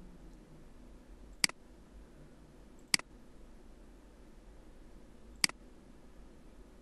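Three sharp computer mouse clicks, spaced about a second and a half and then two and a half seconds apart, over a faint low hum.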